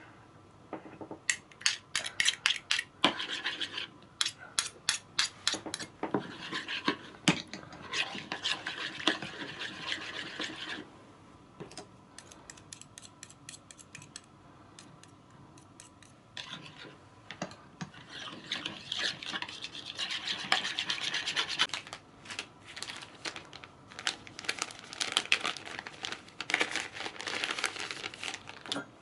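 Metal spoons clinking against each other and the rim of a mixing bowl while chili paste is scraped off and stirred into a soy-sauce mixture. Sharp taps come again and again, with longer stretches of scraping and stirring.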